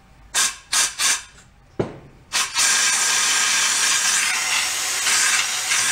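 Compressed-air blowgun hissing through the water passage of a 1937 Sears Waterwitch outboard: three short blasts, then one long continuous blast from about two seconds in. The air goes straight through, a sign that the passage is clear.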